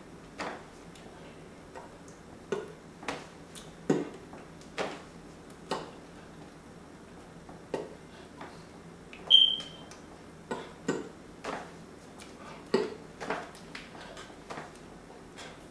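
Hands tapping and slapping against each other while signing in sign language: irregular sharp taps, one or two a second. One short high-pitched chirp about nine seconds in is the loudest sound.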